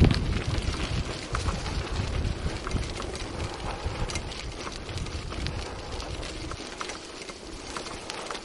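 Bicycle tyres rolling over a loose gravel road, a steady crunching with many small irregular clicks and rattles from stones and the bike. A low rumble of wind on the microphone runs under it and eases off about six and a half seconds in.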